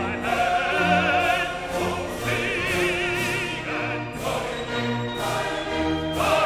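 Background music: classical-style singing with vibrato over orchestra and choir, with a faint beat about once a second.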